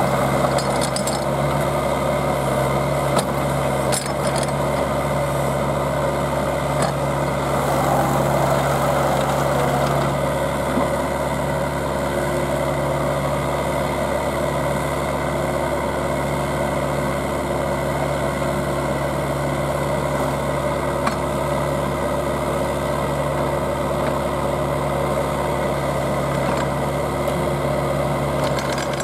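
Engine of a small tracked auger drill rig running steadily under load while its continuous-flight auger turns and drills down through bedrock shale, with a grinding rasp over the engine's hum that is stronger in the first ten seconds.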